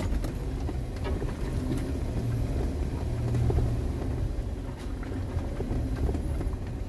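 Off-road 4x4 creeping along a rough gravel trail, heard from inside the cabin: a steady low engine and drivetrain rumble with a few scattered knocks and rattles.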